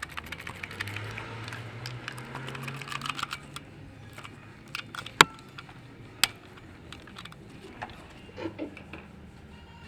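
A run of light metallic clicks and rattles from hand tools and parts being handled, with a low hum during the first few seconds and two sharp knocks about five and six seconds in.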